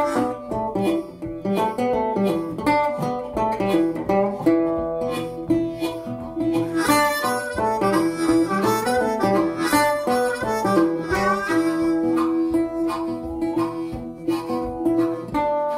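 Intro theme music: a sustained melody line over quick picked notes.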